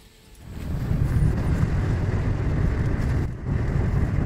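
Steady low rumble of a car driving, heard from inside the cabin, building up about half a second in, with a brief dip a little past three seconds.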